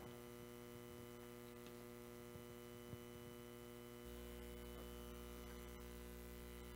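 Near silence: a faint, steady electrical hum that gets slightly louder about four seconds in.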